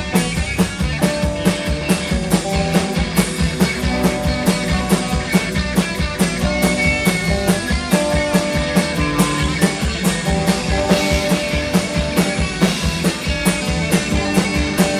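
Live rock band playing an instrumental passage between sung verses, with held guitar notes over a steady, even drum beat.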